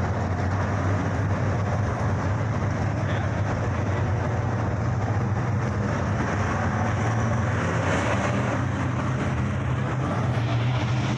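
A pack of dirt-track modified race cars' V8 engines running hard around the oval, a loud, steady, overlapping engine drone.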